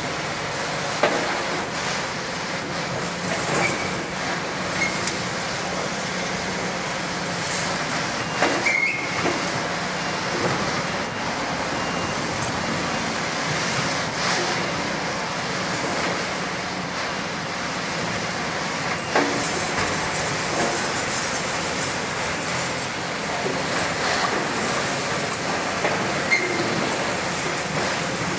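Caterpillar 352 demolition excavators running while their grapples grab and drop scrap metal and concrete rubble: a steady din of scraping and repeated metallic clanks and knocks, with a few brief high metal squeals.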